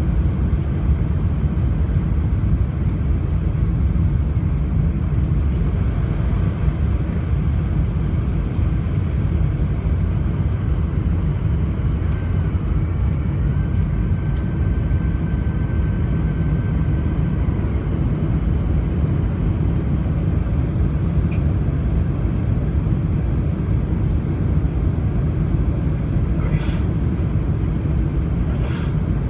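Steady cabin noise of a Boeing 747-400 with Rolls-Royce RB211 engines on final approach, heard from a window seat over the wing: a deep, constant rumble of engines and airflow over the fully extended flaps. A faint thin tone sounds for a few seconds around the middle, and two brief clicks come near the end.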